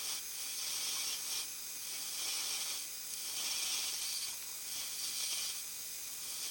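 Small lathe running while a small inner boring cutter enlarges a bore: a steady high hiss that swells and eases about every second and a half, then cuts off suddenly.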